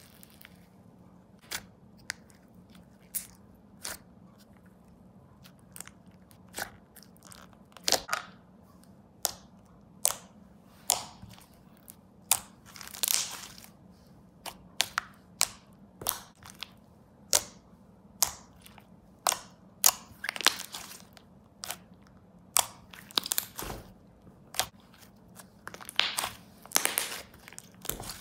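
DIY clay slime with foam beads mixed in being poked, squished and kneaded by hand: a run of sharp sticky pops and clicks, a few at first and then coming more often from about eight seconds in.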